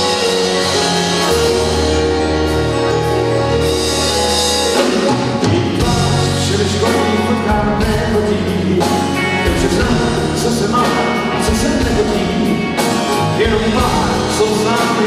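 Live rock band playing: acoustic and electric guitars, bass and keyboard, with the full drum kit driving the song from about five seconds in.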